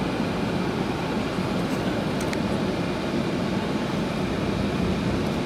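Steady rumble and hiss of a moving vehicle, even in level throughout.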